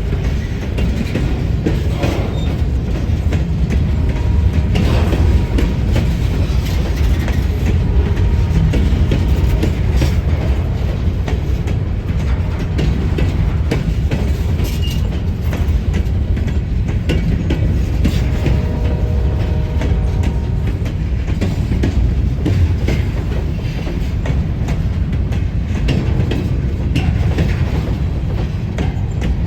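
Great Lakes Central Railroad freight train rolling past, a steady heavy rumble with frequent clicks from the wheels on the rails.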